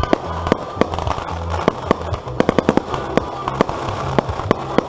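Fireworks going off in a run of sharp pops and cracks, with a dense rapid cluster about two and a half seconds in, over background music.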